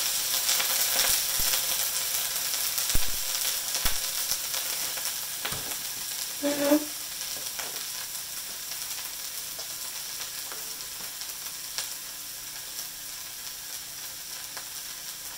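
Broccoli florets sizzling in hot oil in a wok. The sizzle slowly dies down as the pan cools under the load, with a few light knocks about three to four seconds in and a short hum about halfway through.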